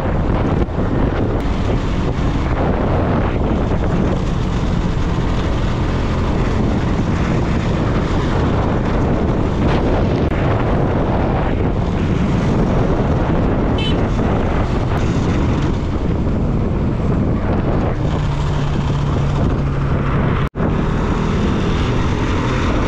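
Wind buffeting the microphone over a motorcycle riding along a road, with the engine's low drone underneath. Late on, a steady low hum holds for about two seconds, and near the end the sound cuts out for an instant.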